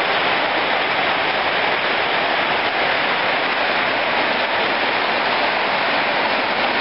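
Steady rain falling, a loud, even hiss.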